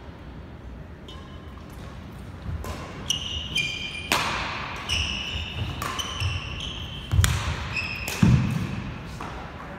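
Badminton rally: sharp racket strikes on the shuttlecock about once a second, starting a couple of seconds in, with short high shoe squeaks on the court floor and thuds of footfalls between them. The loudest strike and thud come near the end.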